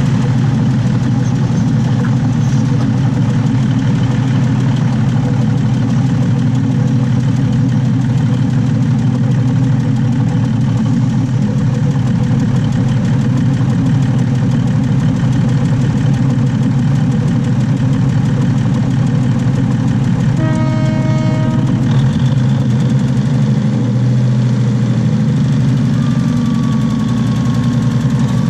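Diesel railcar's underfloor engine running steadily, heard close up from beneath the carriage by the bogie. About two-thirds in, a single steady pitched tone sounds for about a second and a half.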